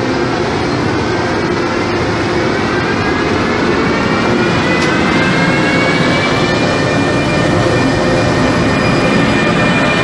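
Electric locomotive hauling a passenger train past at close range, with the running noise of the train and a whine that rises in pitch over the first several seconds and then holds steady, as the train picks up speed.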